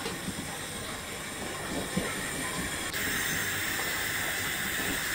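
Steady cooking hiss from pans on a stove. About three seconds in it changes abruptly to a louder, brighter sizzle of oil heating in a black karai.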